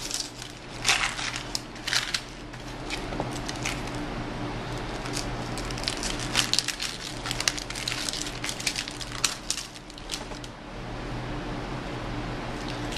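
Dry onion skin being peeled off by hand: irregular papery crackling and tearing in short clusters, over a steady low hum.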